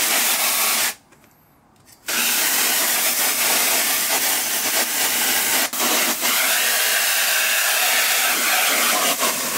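Garden hose spray nozzle jetting water onto a screen-printing screen to rinse it: a steady hissing spray that stops for about a second near the start, then runs on.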